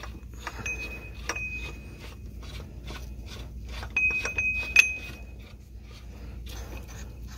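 Metal bolt and hand tool clinking and scraping against a camshaft gear as the gear bolt is fitted and tightened. The clinks are light and irregular, some with a brief ringing tone, and the sharpest clink comes about five seconds in.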